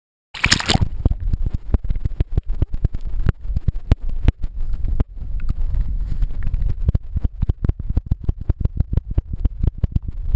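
Stream water heard through a camera held underwater: a muffled low rumble of current with many irregular sharp clicks and knocks, starting suddenly with a short hiss.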